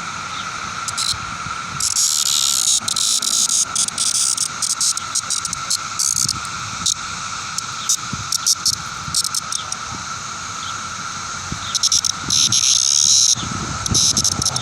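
Male cicada held in the hand buzzing in loud, harsh bursts, about two seconds in and again near the end, with scattered clicks. Under it runs a steady high drone of other cicadas calling.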